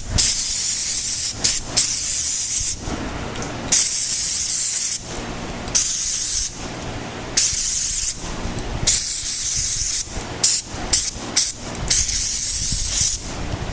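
Aerosol can of brake cleaner spraying in repeated bursts: about a dozen hissing blasts, some brief and several about a second long, with short pauses between them.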